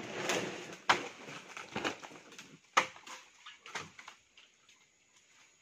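A machete chopping through thick green plant stalks in sharp strikes about once a second, the loudest near three seconds in, with rustling of leaves and stalks between the strikes.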